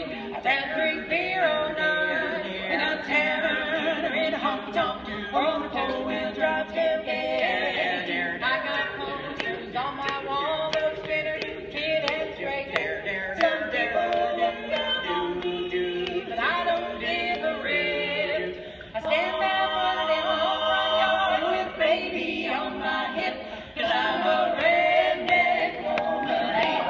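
Women's barbershop quartet singing a cappella in four-part close harmony, with two brief breaks between phrases in the later part.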